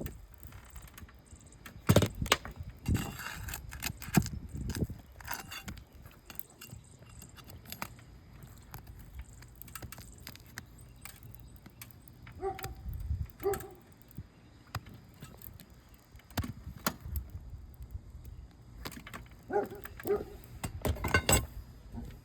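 Flat bar prying at asphalt shingles and their nails: scattered scrapes, clicks and knocks, with short squeaks in pairs around the middle and again near the end.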